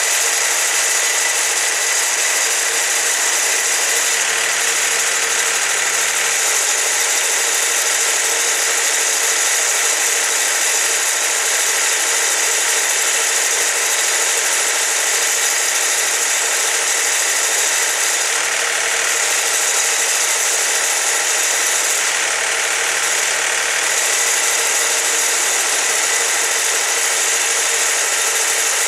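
Wood-Mizer LT40 portable band sawmill running steadily, its engine and band blade going with a constant high whir.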